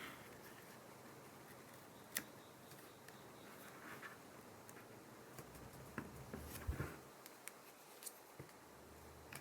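Faint, scattered clicks and taps of small hand tools and parts handled on an iPhone 7 during disassembly. There is one sharper click about two seconds in and a short run of knocks and clicks around the seventh second.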